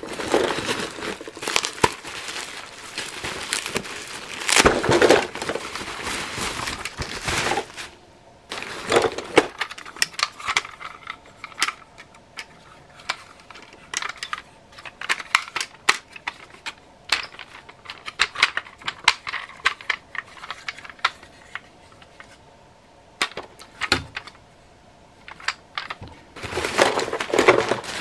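Crumpled newspaper packing rustling and crackling as hands dig through a cardboard box. From about a third of the way in come scattered sharp clicks and light knocks of loose plastic Transformers toys being handled, and the paper rustles again near the end.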